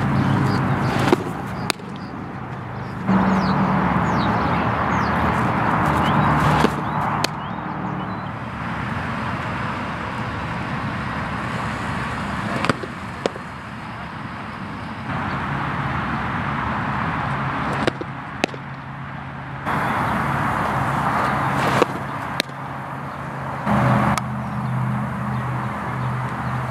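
Steady outdoor background noise with a low engine hum, broken several times by sharp pops of a softball smacking into a catcher's mitt.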